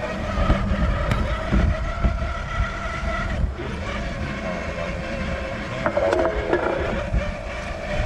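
Traxxas TRX-4 RC crawler's electric motor and geared drivetrain whining as the truck drives, the whine's pitch shifting a few seconds in, over a low rumble of the chassis running over rough ground.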